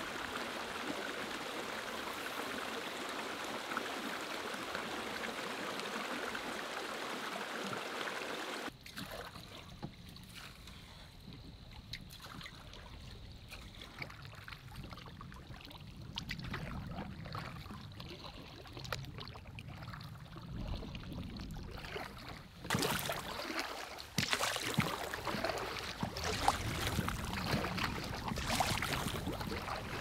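Steady rush of flowing water for about the first nine seconds. After that comes quieter water lapping around a paddled canoe, which grows louder and choppier with splashes over the last seven seconds.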